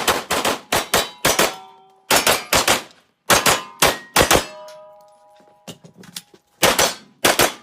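A handgun fired in fast strings of shots, many of them double taps, with steel targets ringing after the hits. This is a timed run on a shooting course.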